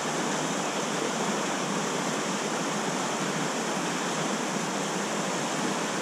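Small trout stream rushing steadily over a riffle of rock ledges and white water.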